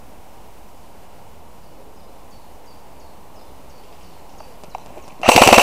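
Steady faint outdoor background, then near the end a sudden loud burst of rapid full-auto fire from an airsoft electric gun, a fast even rattle of shots.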